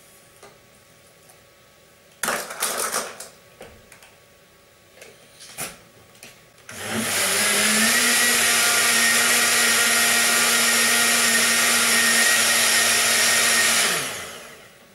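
Countertop blender starting up about seven seconds in and running steadily for about seven seconds as it purées a strawberry and banana smoothie with ground almonds, then winding down as it is switched off. A brief loud clatter about two seconds in.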